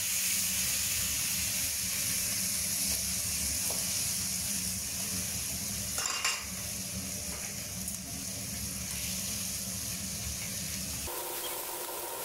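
Mudskippers sizzling steadily as they pan-fry in oil in a wok, with stirring and a brief clatter of a utensil about six seconds in.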